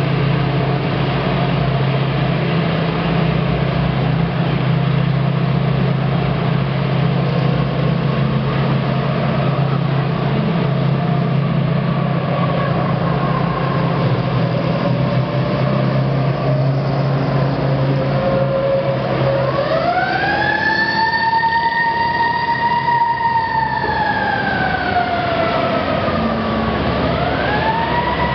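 Convoy of WWII US Army Willys jeeps and 6x6 cargo trucks driving past with engines running steadily. About two-thirds of the way through, a siren winds up to a steady wail, falls away, and starts rising again near the end.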